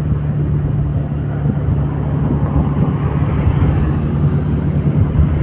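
A motor vehicle's engine drones steadily under continuous road and wind noise, as heard while travelling.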